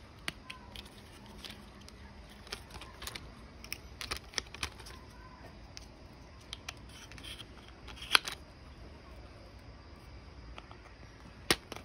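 Scattered light clicks and taps of plastic toy wheels being handled and pushed onto the axles of a plastic toy bus chassis, with a louder click about eight seconds in and another near the end.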